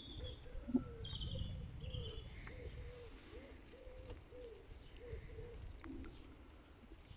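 A pigeon cooing over and over, low soft calls in a steady series, with a few brief higher chirps from another bird early on and a low rumble underneath. A single light knock comes about a second in.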